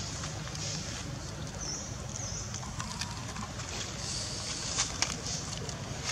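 Outdoor ambience: a steady high hiss over a low rumble, with a few sharp clicks about five seconds in.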